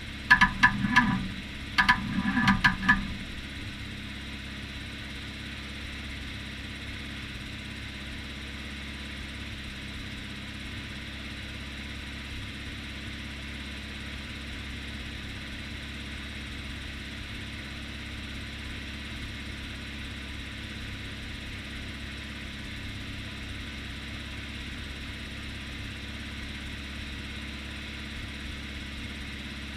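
John Deere JD400 backhoe engine idling steadily. Three short, loud pitched bursts sound in the first three seconds.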